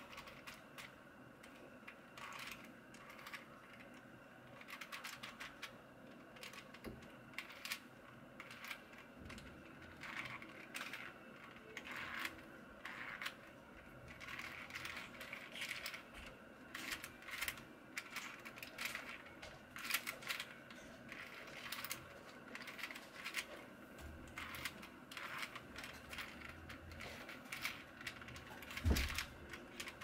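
Plastic layers of a 4x4 Rubik's cube turned by hand through a long algorithm, the OLL parity fix: a quiet, irregular run of clicks and clacks, with one louder knock near the end.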